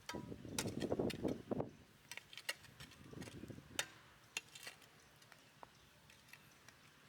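Scattered sharp clicks and light knocks, with brief bursts of rustling or scraping in the first two seconds and again around three seconds in, then mostly quiet with the odd click.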